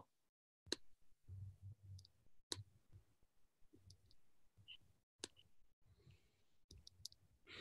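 Faint computer mouse clicks over near silence: a few sharp single clicks spaced one to three seconds apart, as letter tiles are picked up and dragged on screen.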